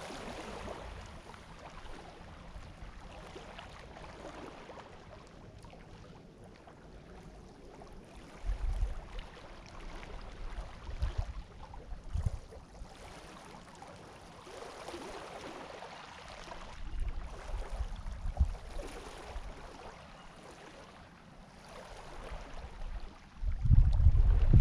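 Small waves washing in and out over a pebble beach, a soft swelling hiss. Gusts of wind buffet the microphone with a low rumble now and then; the strongest comes near the end.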